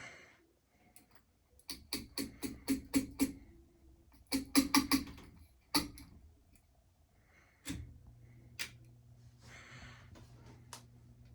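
A quick run of sharp clicks, a second run and a single click, then another click and the Westinghouse Art Metro ceiling fan's motor coming on with a steady low electrical hum. The fan has a bad capacitor.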